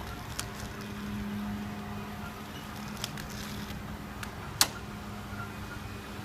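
Floor-cleaning machine's motor giving a steady, even hum, with a few sharp clicks over it; the loudest click comes about four and a half seconds in.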